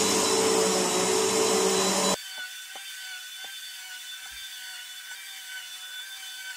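Bissell PowerForce Helix upright vacuum cleaner running over carpet, a loud steady motor noise with a high whine. About two seconds in it drops abruptly to a quieter, steady whine with a few faint clicks.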